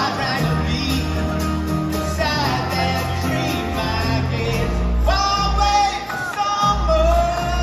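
Live band music: men's voices singing long held notes over acoustic guitars, bass and drums, with a pulsing low bass line, heard from the crowd in a large hall.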